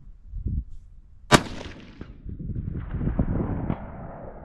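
A single shot from a Savage Axis bolt-action rifle in .308: one sharp, loud crack about a second in, followed by a low rumble that lasts a couple of seconds.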